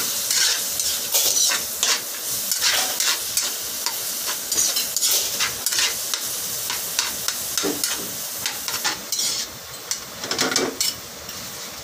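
Diced bacon sizzling as it fries in oil in a metal wok, with a metal spatula repeatedly scraping and stirring it against the pan.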